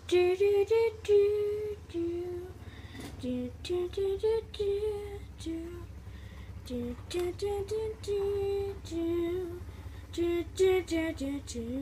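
A child's voice singing a slow wordless tune, one held note after another with short breaks, over a few sharp clicks and a steady low hum.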